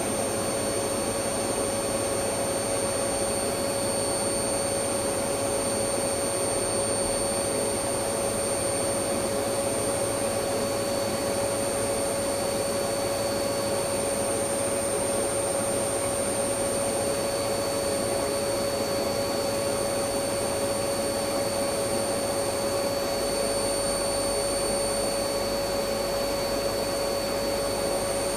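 Electric vacuum cleaner running steadily: an even rushing hiss with a constant motor whine, no change in pitch or level.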